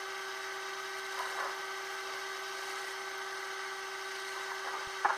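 A steady mechanical hum made of several held tones, with a short click near the end.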